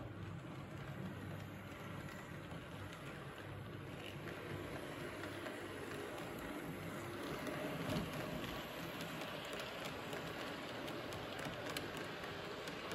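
Rivarossi model train, a BR 61 streamlined tank locomotive with Henschel-Wegmann coaches, running on model track: a steady motor hum and rumble of wheels on the rails with faint clicks, growing slightly louder as the train draws near.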